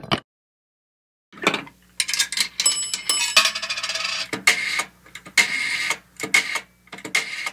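Closing logo sound effect: a short hit, about a second of silence, then a quick run of bright bell-like dings and clicks with ringing tones.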